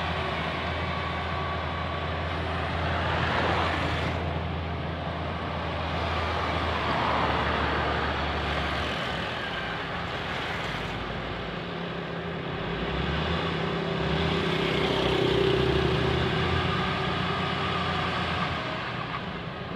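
Motor grader's diesel engine running under load as it works the blade through soil. The note rises and falls, and shifts about nine seconds in.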